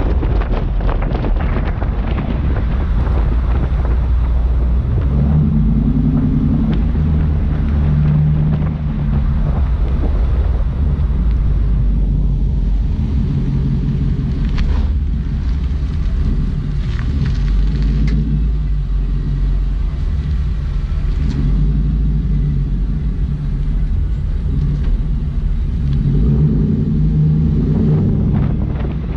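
Heavy wind noise buffeting a GoPro's microphone, over the drone of a motor whose pitch shifts up and down after the first few seconds.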